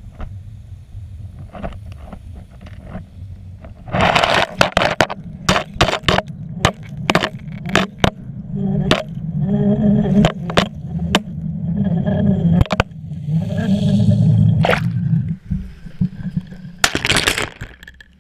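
Underwater action camera in its waterproof housing being reeled up from a shingle seabed on a fishing line. A low underwater rumble turns, about four seconds in, into repeated sharp knocks and scrapes over a steady rush of water. Near the end comes a louder rushing burst as it breaks the surface.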